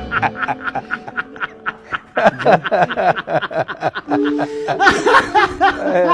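A man laughing heartily, a long run of quick, breathy laughs.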